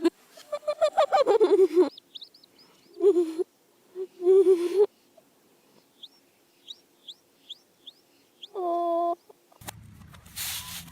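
Farm animal calls played backwards: several pitched calls in the first five seconds, then a run of about six short high chirps and one longer held call near the end. A noisy hiss takes over just before the end.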